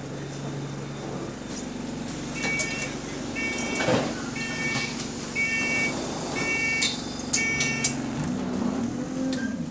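A bus's diesel engine idling, with an electronic warning beep repeating about once a second, six times. There is a clunk about four seconds in. Near the end the engine note rises as it pulls away.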